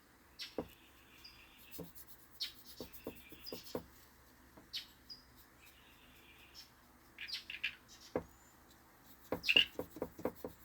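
Backyard songbirds: one call repeated three times about two seconds apart, each a quick falling note running into a short buzzy trill, then faster runs of chirps near the end. Soft taps and rubbing, as of a paintbrush on paper, sound beneath.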